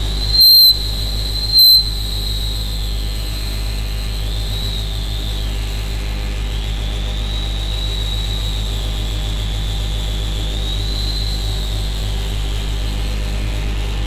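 Lumanoise v4 electronic instrument sounding a steady low drone under a high whistling tone that slowly arcs up and down in pitch, a filter sweep, played through delay and plate reverb. Two short, loud high beeps sound about half a second and a second and a half in.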